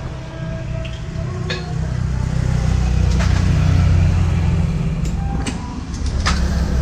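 An engine running steadily with a low, rapidly pulsing rumble, and a few sharp metallic clinks over it.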